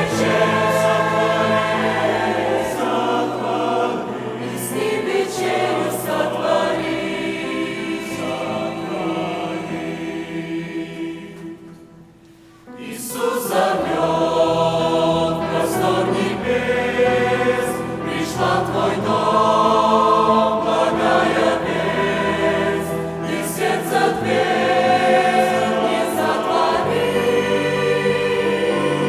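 Church choir singing a Russian-language hymn in several voice parts. The singing dies down almost to nothing about twelve seconds in, then comes back in full.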